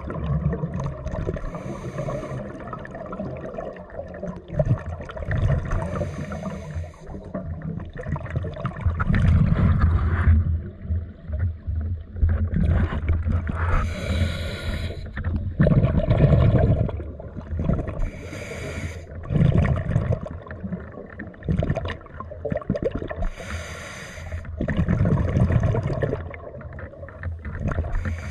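Scuba diver breathing through a regulator underwater, in slow repeating cycles: a hiss on each inhalation, then a low bubbling rumble of exhaled bubbles.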